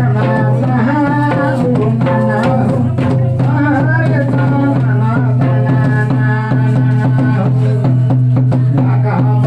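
Loud dance music with singing and drums, over a strong, steady low hum.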